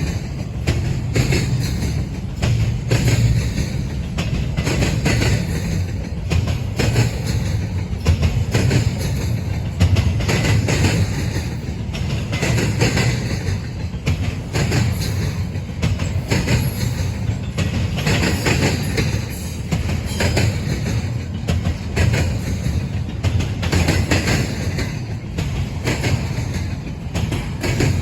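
Freight train of double-stack container cars rolling past, a steady low rumble with the wheels clicking over the rail joints.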